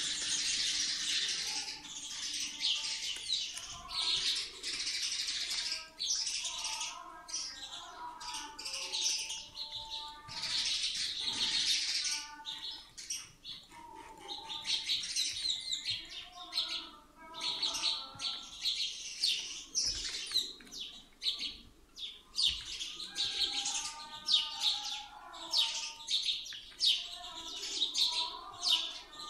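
Birds chirping: many quick, high calls in dense runs, broken by short pauses.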